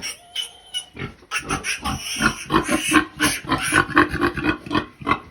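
A young pig giving a rapid run of loud grunts and squeals, loudest from about a second in until near the end.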